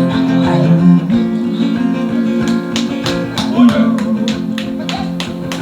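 Acoustic guitar playing an instrumental passage of a slow ballad: held chords, with a regular strummed beat coming in about halfway through.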